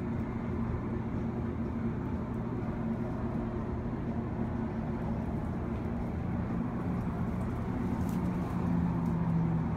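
Steady low hum of an observation elevator running as the car climbs the tower, with a low tone growing louder near the end.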